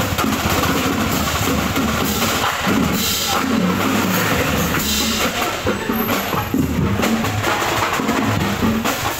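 Marching band drums playing in a street procession, a bass drum among them, with dense drum strokes throughout.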